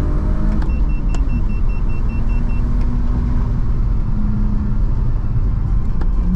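BMW E46 325i's straight-six engine and road noise heard from inside the cabin while driving, a steady low rumble with an even engine note. About a second in, a faint quick run of high beeps sounds for about two seconds.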